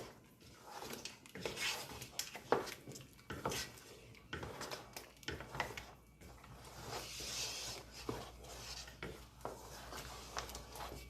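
Wooden spoon stirring thick ogbono soup in a pot, with irregular scrapes and knocks of the spoon against the pot.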